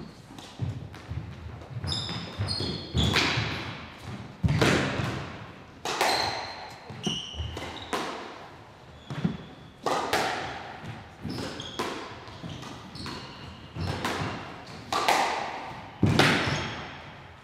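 Squash rally: the ball is struck by the rackets and cracks off the walls about every one to one and a half seconds, each hit echoing in the enclosed court. Shoes squeak briefly on the court floor between the shots.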